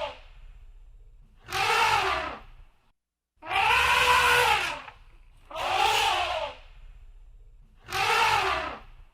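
Elephant trumpeting: four loud, harsh calls about two seconds apart, each lasting about a second and rising then falling in pitch, with the tail of another call at the very start.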